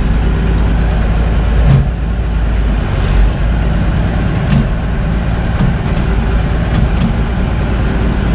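John Deere 4030's six-cylinder diesel engine running steadily while the tractor drives along in high-speed first gear, a low rumble with a few light clicks or rattles scattered through it.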